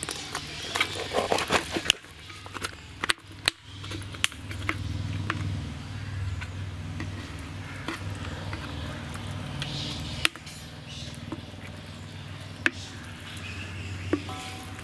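A metal spoon knocking and scraping against a glass jar as salt-soaked citron pieces are tipped out into a kadai of spiced oil: scattered sharp clicks and knocks, with a steady low hum underneath.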